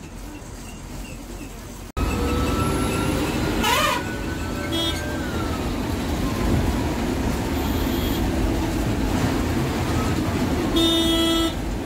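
KSRTC bus running along the road: steady low engine and road rumble, with a thin whine that rises and then slowly falls. A horn toots once, briefly, near the end.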